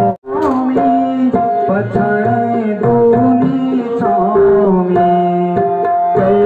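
Garhwali mangal geet sung by a male voice, with harmonium and tabla accompaniment. The sound breaks off for a moment just after the start, then the music carries on.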